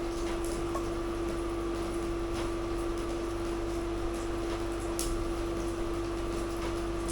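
A steady machine hum with one constant mid-pitched tone over a faint hiss, with a few light clicks, the sharpest about five seconds in.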